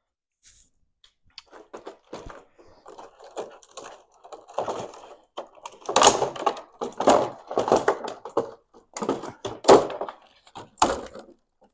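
Clear plastic packaging (a blister tray and bagged accessories) crinkling and rustling as it is handled, in irregular crackly bursts that turn louder about halfway through.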